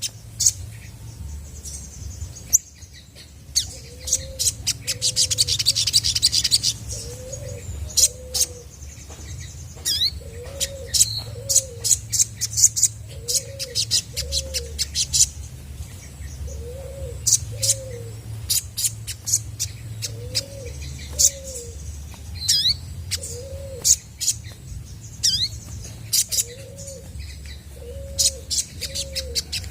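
Olive-backed sunbird calling: sharp high chirps and quick falling notes, with a fast buzzy trill about four seconds in. Beneath it, another bird repeats a low two-note call about every one and a half seconds, over a steady low hum.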